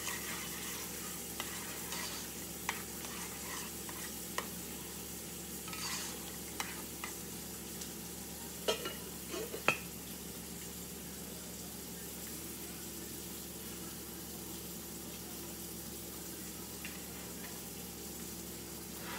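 Catfish fillet searing in hot oil, a steady sizzle, with two sharp metal clinks of the stainless pot lid being handled about halfway through.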